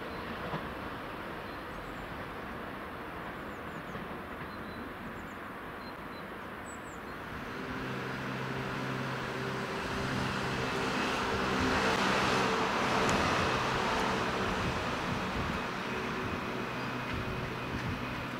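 Bombardier Talent 3 electric multiple unit approaching on the line. A steady, several-toned hum from its electric drive comes in about seven seconds in, and the rolling noise swells to its loudest about two-thirds of the way through, then eases a little.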